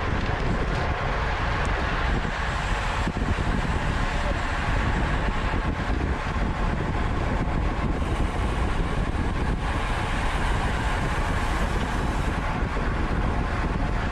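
Steady rushing wind noise on a bike-mounted camera microphone while cycling, with no clear tones or impacts.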